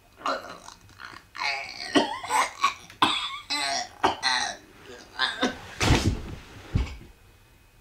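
A man's voice making a rapid string of exaggerated vocal warm-up noises: short yelps, croaks and burp-like grunts whose pitch swoops up and down, broken by brief gaps. Near the end come a loud rushing burst and a low thud.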